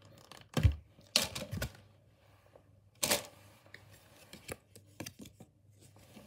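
Hands handling an opened metal trading-card tin and its plastic insert: a low thump about half a second in, then rustles and several light clicks and taps as the packs and code card are moved.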